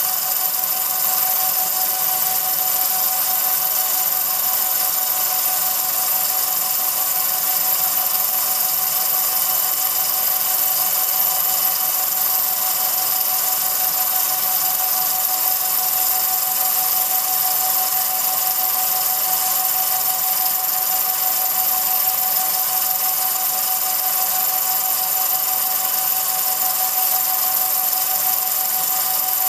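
Film projector running: a steady mechanical whir, a constant whine over loud hiss, unchanging throughout.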